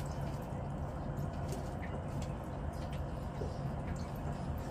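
Steady low motor hum with faint scattered ticks over it.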